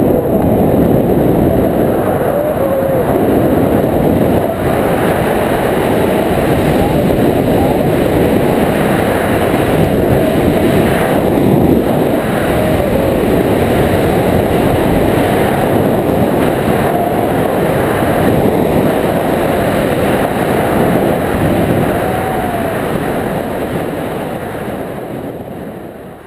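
Loud, steady wind rush buffeting a camera microphone in paragliding flight, fading out over the last few seconds.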